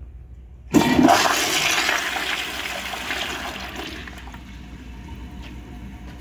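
A Project Source Pro-Flush Eco pressure-assist toilet, 0.8 gallons per flush, flushing. A sudden loud whoosh starts under a second in and fades over about three seconds into quieter running water.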